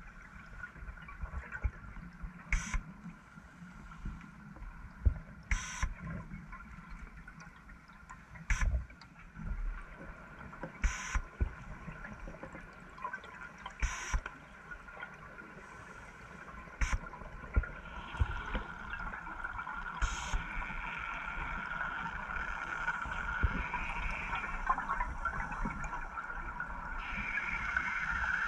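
Underwater sound of a scuba dive: a diver's regulator breathing cycle, a short sharp burst about every three seconds, over a steady whine in the water that grows louder and wavers from about two-thirds of the way in.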